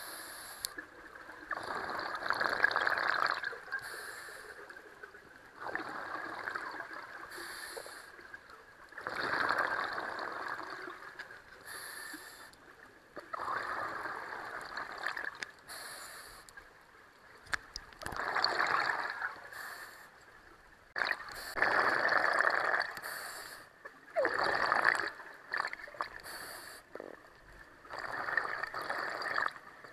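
Scuba diver breathing through a regulator underwater, about every four seconds: a short hissing inhale, then a longer, louder gurgling rush of exhaled bubbles.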